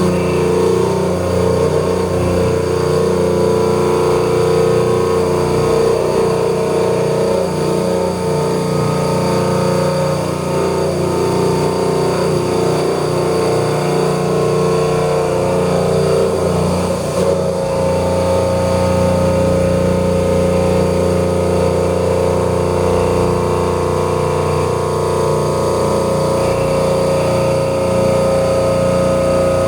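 CNC vertical machining centre running steadily through a milling cut: a continuous mechanical hum with several held tones from the spindle and machine drives.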